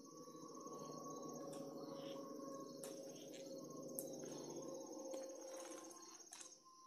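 Insects trilling steadily in a high, fast-pulsing drone. Under it a low hum swells and then fades out about five and a half seconds in, with a few faint clicks scattered through.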